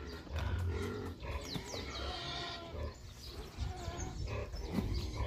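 Pigs grunting.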